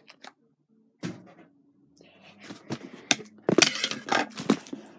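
About a second of silence, then cardboard box and packing paper rustling and crackling as they are handled, with several sharp cracks in the second half.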